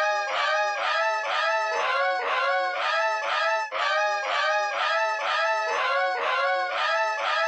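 A person's crying voice, electronically distorted with 'Preview 2'-style meme audio effects into a rhythmic run of pitched, many-toned wails, a little over two a second.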